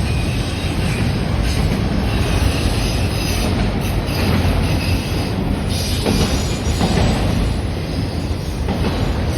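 CN freight train's cars rolling past, a steady noise of steel wheels on rail.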